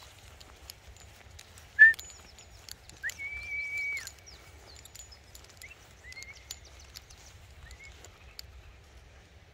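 A dog whining: a short, sharp high yelp about two seconds in, then a drawn-out high whine lasting about a second, followed by a few shorter, fainter whines.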